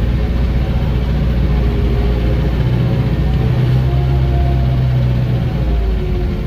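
Vehicle engine running steadily, heard from inside the cab while driving. Its low hum grows stronger for a few seconds in the middle.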